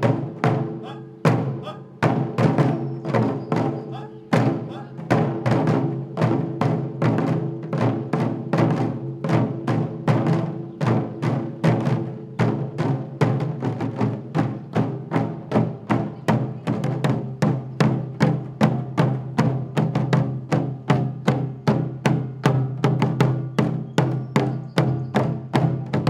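Taiko drums struck with wooden bachi: rope-tensioned drumheads beaten in a steady run of strokes, sparser over the first few seconds and then settling into a dense, even driving rhythm.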